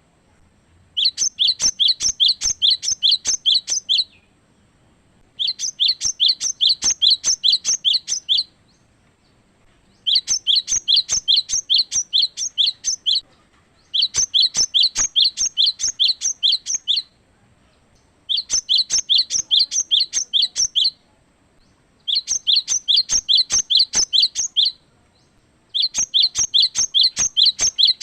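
Cinereous tit (gelatik batu) singing: phrases of rapidly repeated high whistled notes, about three a second, each phrase about three seconds long and separated by pauses of a second or so.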